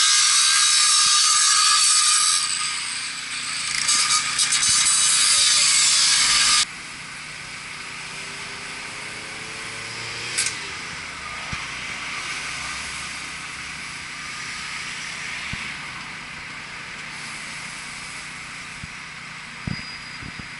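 Angle grinder cutting steel: a loud, high hiss with a steady whine that stops abruptly about six and a half seconds in. After that there is quieter outdoor background with an occasional sharp metal knock.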